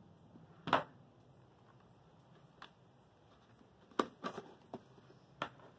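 A few light clicks and taps from handling craft materials on a work table: one about a second in, then a small cluster near the end.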